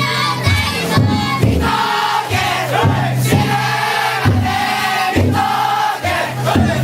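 Bearers of a futon daiko festival drum float chanting together in unison over the float's taiko drum, which is struck at an uneven pace of roughly one beat a second.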